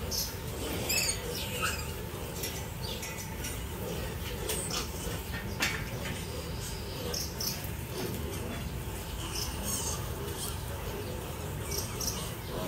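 Piglets giving short, high squeaks over a steady low rumble.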